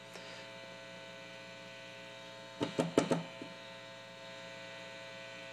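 Mains hum from a 1969 Plush P-1000S all-tube amp head with channel one turned up and nothing plugged in, a steady buzz of many even tones. It is channel one's noise, whose input leads run further than channel two's. A few light clicks come about halfway through as the control knobs are handled.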